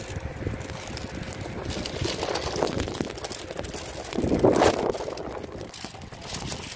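Wind buffeting the phone's microphone, a gusty rumble, with handling and rustling noise that swells loudest about four and a half seconds in.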